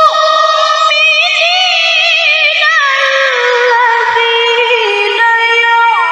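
A woman reciting the Quran in the melodic tilawah style into a microphone, her voice high-pitched and melodious: one long phrase of held notes with quick wavering ornaments, stepping gradually lower in pitch.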